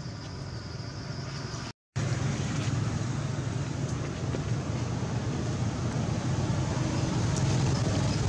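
Steady low rumbling background noise with a light hiss. It drops out for an instant about two seconds in and comes back a little louder.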